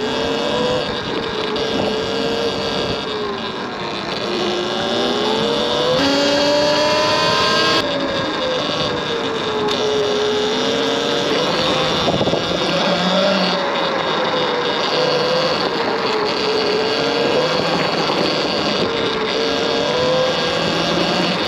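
Electric e-bike motor whining while riding on a dirt trail, its pitch rising and falling with speed, over steady wind and tyre noise.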